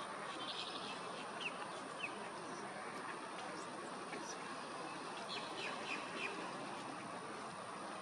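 Wild bird calls: a few short, high chirps about one and a half and two seconds in, and a run of them between five and six seconds, with a brief buzz about half a second in, over a steady noisy background.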